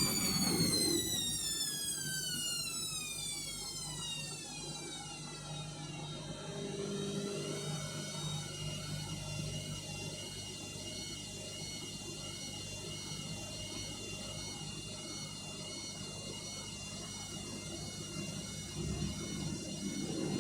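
Indesit washing machine's motor whine falling steadily in pitch over the first six seconds as the drum spins down, then holding a steady, slightly wavering whine over a low hum. The machine is overdosed with detergent, and the spin is being cut short by oversudsing (sudslock).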